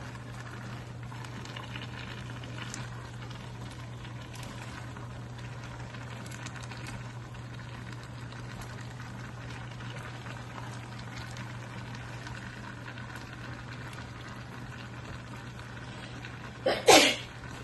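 Pan of stir-fried vegetables bubbling and sizzling as they cook in their own juices, a steady hiss over a low, steady hum. A short, loud burst near the end.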